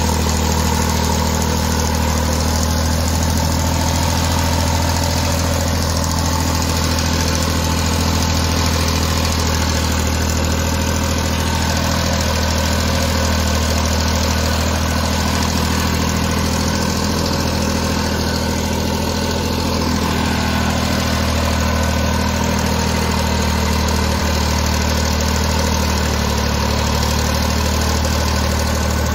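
Massey Ferguson 9500 tractor's diesel engine running steadily under load as it pulls a three-bottom mouldboard plough through the soil.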